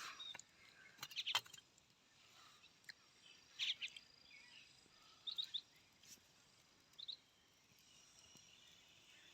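Quiet outdoor ambience: scattered short bird chirps over a faint steady high insect drone, with a few sharp clicks about a second in.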